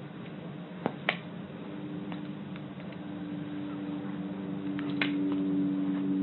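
A cat's paws tapping a tablet's touch screen, two sharp taps about a second in and more around five seconds, over a steady low hum that grows louder toward the end.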